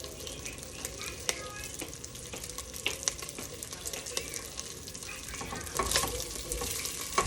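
Salchichón (hard Spanish salami) frying and sizzling in a hot pot as it renders its fat, stirred with a utensil that clicks and scrapes against the pot, with louder scraping about six seconds in.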